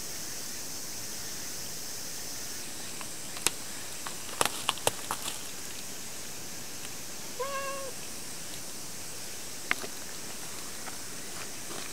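Domestic cat giving one short meow, about half a second long, a little after the middle. Before it comes a quick run of sharp clicks and taps, the loudest sounds here, and one more click follows near the end.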